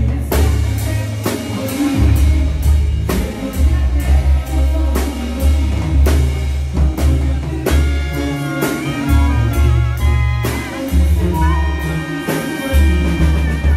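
Live banda music played loud over a concert sound system: a pulsing bass and drums, with clarinets taking the melody from about halfway through in held, wavering notes, and no singing.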